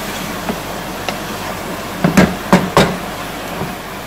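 A spoon stirring minced meat in a metal pot, knocking against the pot's side: two light knocks in the first second, then three loud knocks in quick succession about two seconds in, over a steady hiss.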